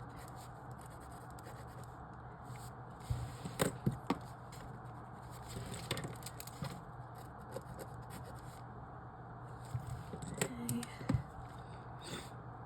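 Pencil work on paper: light scratches and taps in three short clusters, with quiet stretches between them.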